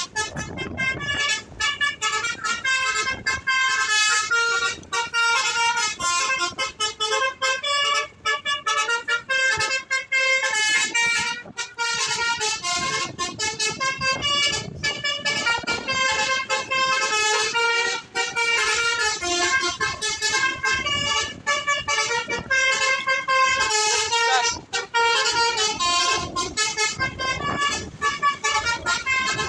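A bus's Basuri V3 telolet horn, a multi-tone air horn, playing a melody of stepping notes over and over with short breaks between phrases.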